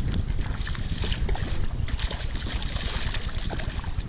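Hooked catfish splashing at the water's surface on the line, with wind rumbling on the microphone.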